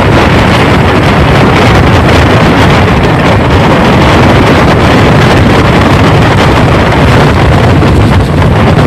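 Hurricane-force wind of a Category 5 storm blowing hard and buffeting the microphone in a loud, unbroken rush with a heavy low rumble.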